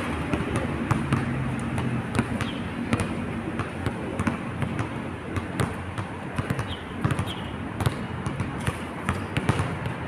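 Basketball bouncing on an outdoor court: repeated, irregular sharp thuds, several a second, over a steady background hiss.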